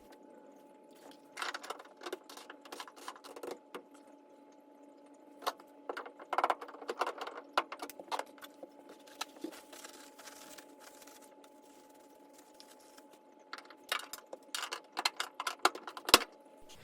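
Scattered light clicks and clatter of hands working, in three bursts, over a steady low hum.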